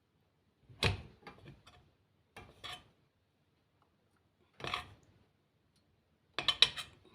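Kitchen utensils and dishes clinking and knocking in a handful of short clatters, spaced a second or two apart, the loudest near the end.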